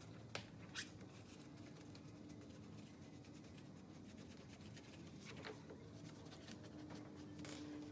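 Very faint handling of hand tools on a UTV's brake caliper: a few scattered light clicks and scrapes over a faint steady hum.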